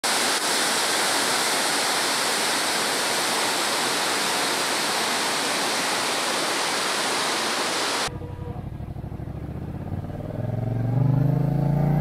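Waterfall in full flow, a steady rush of falling water. About eight seconds in it cuts abruptly to a motorcycle engine running, which rises in pitch as the bike accelerates near the end.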